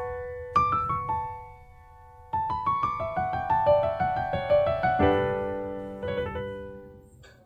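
Intro music on a piano: short runs of plucked-sounding notes, a brief pause, then more notes ending in a held chord that fades out.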